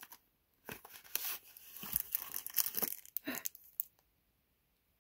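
Paper and tissue paper crinkling and rustling in the hands as a small jewellery packet is unwrapped, in uneven bursts that stop about a second before the end.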